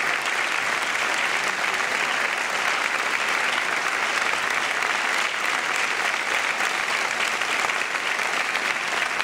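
A large theatre audience applauding, many hands clapping in a dense, steady ovation.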